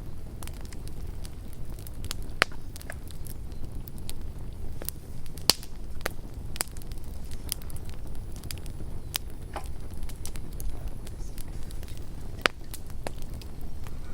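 Campfire burning, the wood crackling with irregular sharp pops over a low steady rumble of the flames. The loudest pops come about two and a half seconds in, at about five and a half seconds, and near the end.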